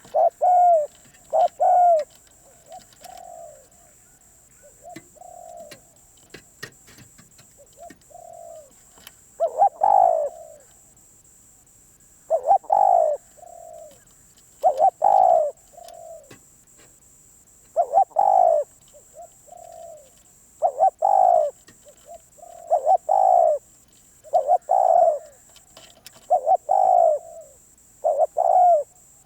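Spotted dove cooing in repeated phrases, a few seconds apart. The phrases are soft at first and much louder from about nine seconds in.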